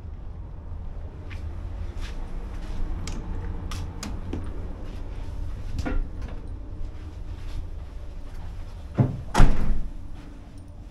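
A heavy door swinging shut with two close thuds near the end, over a steady low rumble and scattered light clicks and taps.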